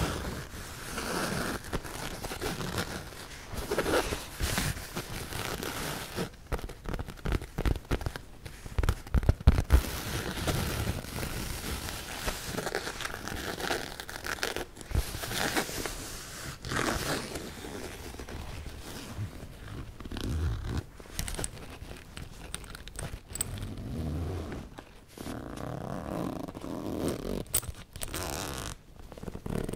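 Fingernails scratching, rubbing and tapping on a fabric laptop carrying bag held close to the microphone: an irregular scratchy rustle with scattered clicks and a few louder dull knocks about a third of the way through.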